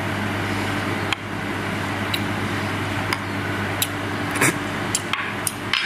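Steady low machine hum, with several short, sharp clicks about a second apart.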